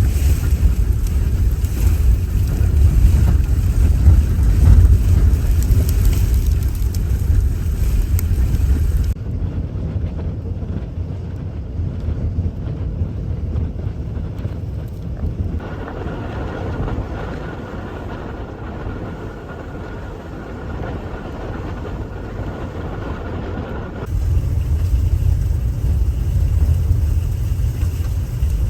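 Strong sandstorm wind gusting and buffeting the microphone with a deep rumble. About nine seconds in it cuts abruptly to a quieter, muffled wind noise, later with a faint steady whine, and the loud buffeting returns near the end.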